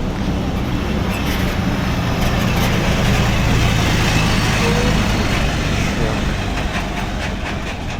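A large road vehicle passing close by in traffic, its engine and tyres swelling to a peak about halfway through and then fading.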